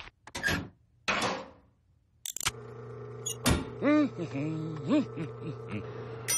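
Cartoon soundtrack effects and music: two short hissing bursts, a sharp click, then a low steady hum under sliding tones that rise and fall, ending in a bright chime.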